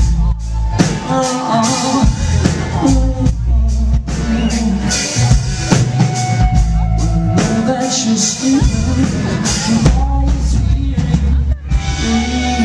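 Live rock band playing loudly, with a drum kit and guitars.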